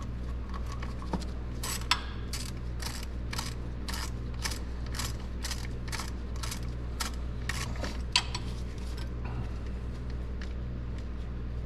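Hand ratchet with a 10 mm socket backing out the tight throttle-body bolts: a run of short, evenly spaced ratcheting clicks, roughly two to three a second, from about two seconds in until about eight seconds in. A steady low hum runs underneath.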